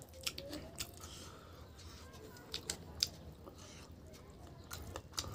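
Wet mouth sounds of a man eating rice and chicken curry by hand: scattered sharp lip-smacks and chewing clicks, the loudest about three seconds in.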